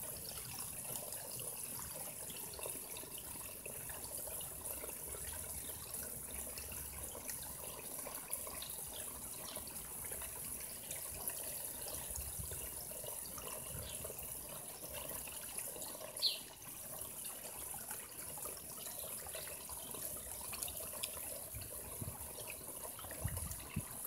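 Water running steadily into a garden koi pond, an even trickling splash. About two-thirds of the way through comes one brief, high chirp-like squeak.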